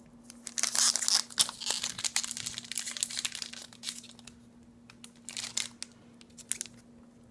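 Foil booster-pack wrappers crinkling as they are handled and set on a scale, in dense crackling for the first few seconds and a shorter burst of crinkling about five and a half seconds in, with a few light clicks after it.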